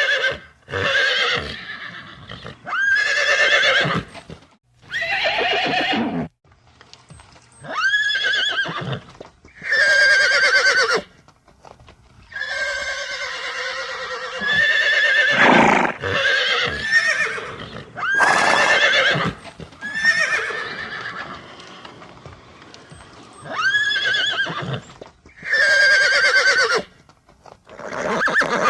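Horse whinnying: about a dozen separate neighs in a row, each about a second long with a quavering pitch, with short pauses between them.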